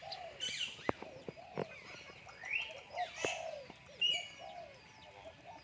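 Myna bird giving a series of short varied calls: whistles that slide up and down, mixed with a few sharp clicks.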